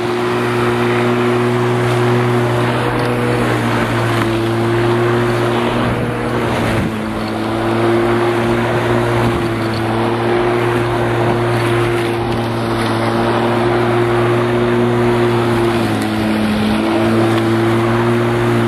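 Bosch Rotak 34R corded electric rotary lawn mower running at full speed, its 1300 W motor and 34 cm steel blade cutting long grass: a steady hum with a rushing noise over it. Its pitch dips briefly twice, about seven and sixteen seconds in.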